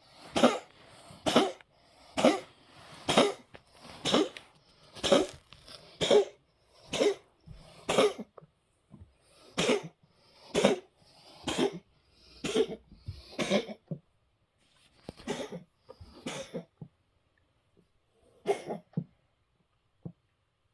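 A cat hacking and retching over and over, about one hack a second, trying to bring up a hairball. The hacks thin out and come further apart over the last several seconds.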